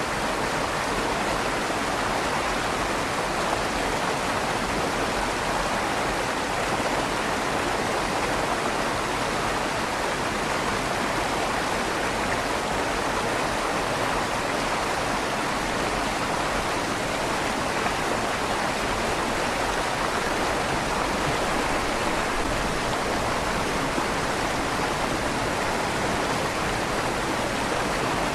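River water flowing steadily under a stone bridge, a continuous rushing wash with a slight echo off the inside of the bridge's tunnel.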